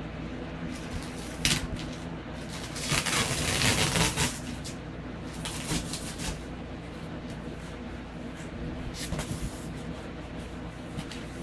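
A cardboard shipping box being opened and its contents handled: a sharp click, then a louder stretch of rustling and scraping about three seconds in, and lighter rustles later. A steady low hum runs underneath.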